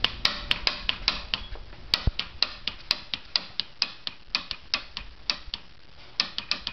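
150cc scooter engine clicking rapidly, about five or six clicks a second, as the starter is pressed and the engine does not turn over. The owner takes it to be jammed.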